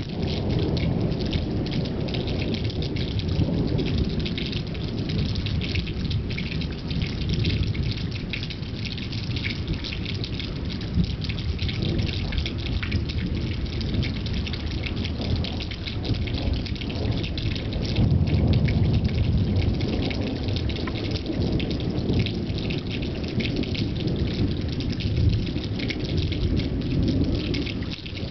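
Rain falling steadily in a thunderstorm, with drops splashing close by and low rumbling thunder that swells about two-thirds of the way through.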